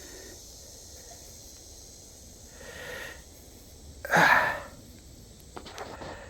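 A person's breathy puffs of air, three short ones, the loudest about four seconds in, over a steady chorus of crickets.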